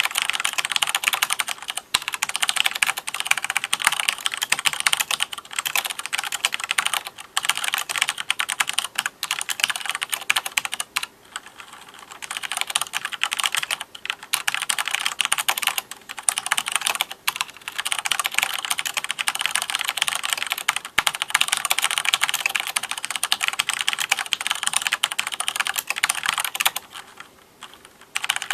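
Fast, continuous typing on an Owltech mechanical keyboard with Cherry MX Black linear switches, a dense stream of key clicks and bottoming-out clacks. It eases briefly about eleven seconds in and pauses again near the end.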